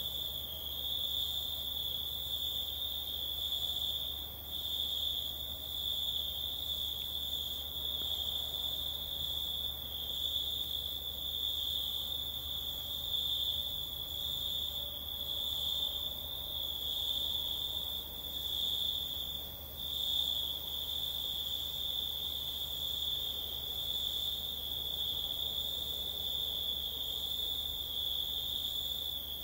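Crickets chirring in a continuous high, slightly pulsing trill that dips briefly twice, over a low steady hum.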